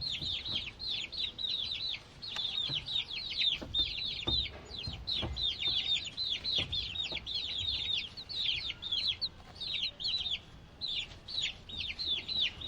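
A group of baby chicks peeping continuously: short, high, downward-sliding peeps, several a second and overlapping one another.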